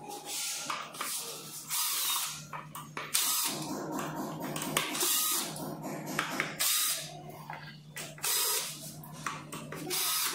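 Cordless drill-driver unscrewing the screws of an electric scooter's deck plate, whirring in short bursts several times with pauses between screws.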